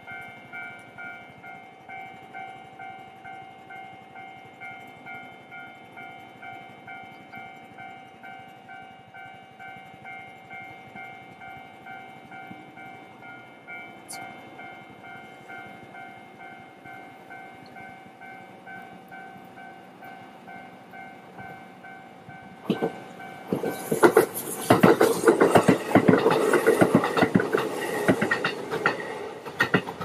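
Japanese level-crossing alarm bell ringing steadily at about two strikes a second. About three-quarters of the way in, a Kintetsu train passes over the crossing, a loud rush of wheel clatter that drowns the bell until near the end.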